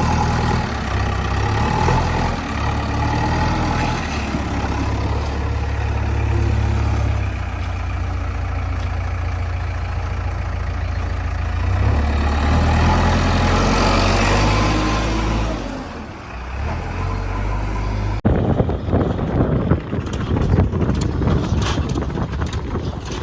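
Heavy diesel engine of a backhoe loader running under working load, its rumble rising and falling. About three-quarters of the way through the sound cuts abruptly to rougher engine noise with irregular knocks and clatter.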